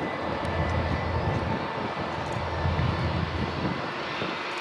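Airbus jet airliner's turbofan engines running at low power as it taxis: a steady rushing noise with a low rumble and a faint high whine.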